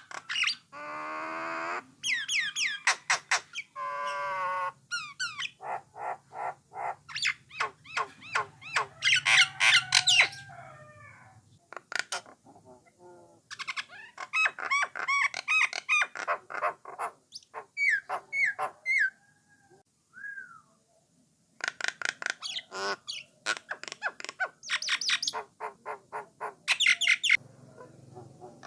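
Jalak nias (jalak coklat) myna singing: a long, varied song of rapid clicks, harsh squawky notes, whistles and trills in quick phrases, with short pauses between them.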